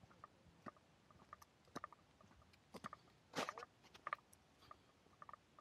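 Near silence, with faint scattered clicks and one brief louder rustle about three and a half seconds in.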